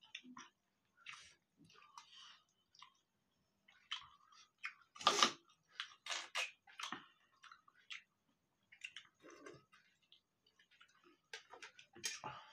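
Chewing and other mouth sounds of people eating rice and chicken curry by hand, in short irregular bursts, the loudest about five seconds in.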